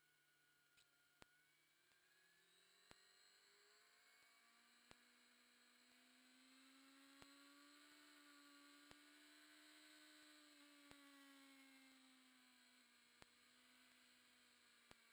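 Near silence: a recording with no real audio, holding only a faint whine that slowly rises and falls in pitch, with a soft click about every two seconds.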